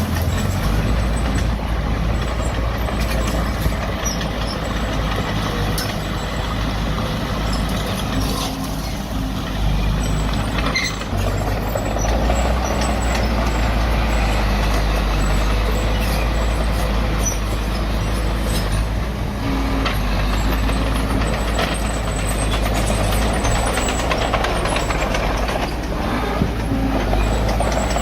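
Heavy diesel engine of earthmoving machinery running steadily under varying load, a low rumble with a few scattered clanks.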